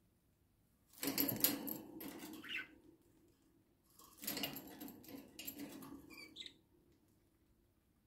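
Budgerigars courtship-feeding: two bouts, each about two seconds long, of rapid clicking and squeaky chatter as the male regurgitates food into the female's beak.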